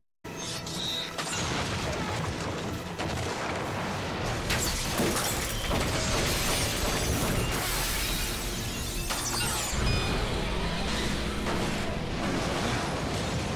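Action-scene soundtrack: dramatic score mixed with gunshots, sharp impacts and explosions, coming in after a moment of silence at the start.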